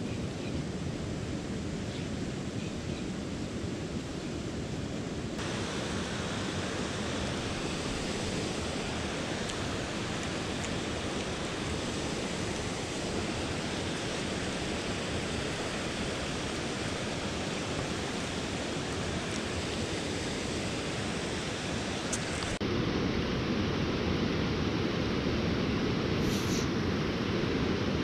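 Mountain stream water rushing over rocks, a steady hiss-like noise that changes abruptly in tone about five seconds in and again near the end.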